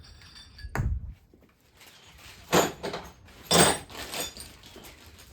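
Parts and tools handled during an engine teardown: a dull thump about a second in, then three short scraping, rattling sounds.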